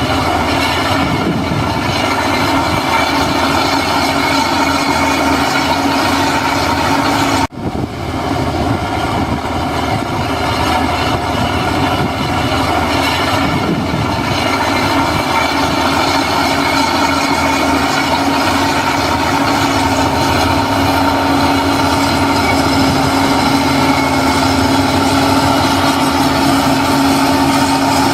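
Heavy diesel construction-machine engine running steadily under load, with a steady whine over the rumble. The sound breaks off for an instant about seven seconds in, then carries on.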